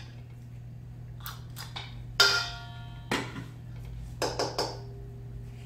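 A measuring cup and utensils knocking and clinking against a stainless steel mixing bowl, with one louder ringing metallic strike about two seconds in. A steady low hum runs underneath.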